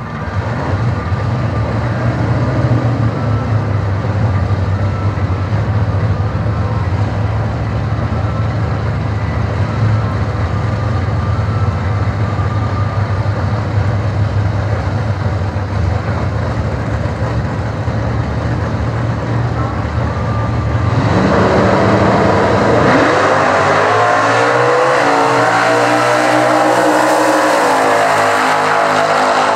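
Two drag cars' V8 engines, one a 383 stroker in a Ford XA Falcon coupe, idling steadily at the start line, then launching about 21 seconds in and revving hard, the pitch climbing as they accelerate down the strip with a brief dip near the end.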